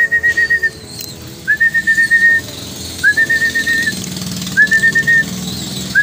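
A person whistling a pigeon-feeding call. Each call is a short rising whistle that flutters quickly on one high note, repeated about four times, about every second and a half.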